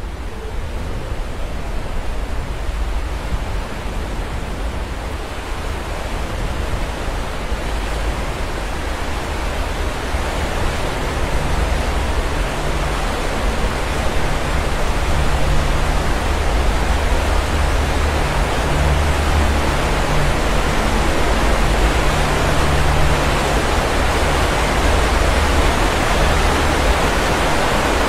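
A tall waterfall plunging down a cliff face: a steady rushing of falling water with a deep low rumble, slowly growing louder.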